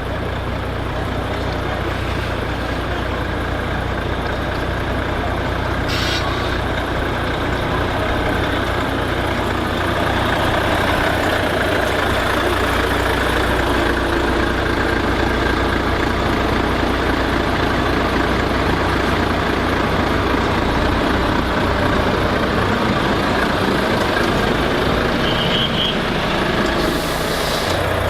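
Heavy truck engines running steadily, with a short hiss about six seconds in.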